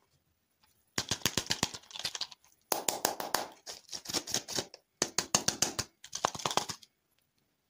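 Crinkly plastic wrapper of a ball-shaped toy lollipop crackling as hands twist and peel it off, in four bursts of rapid crackles with short pauses between.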